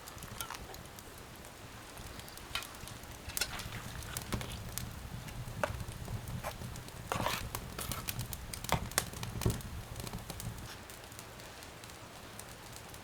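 Wood fire crackling in a stove: scattered sharp crackles and pops, with a few louder knocks in the middle over a low steady rumble.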